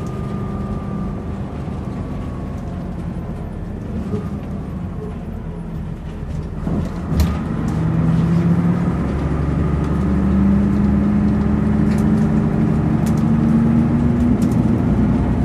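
Double-decker bus engine heard from the upper deck: it runs quietly for the first half with a faint falling whine, a knock comes about seven seconds in, then the engine gets louder and its note climbs steadily as the bus accelerates.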